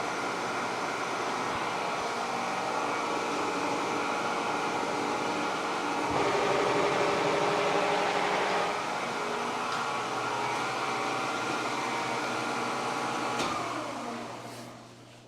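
An old Kearney & Trecker horizontal milling machine running, with a steady whine of several tones that grows louder for a couple of seconds midway. A click comes near the end, then the spindle winds down, its pitch sliding lower as the sound fades away.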